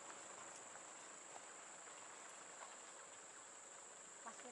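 Near silence: a faint steady hiss with a thin, high-pitched whine.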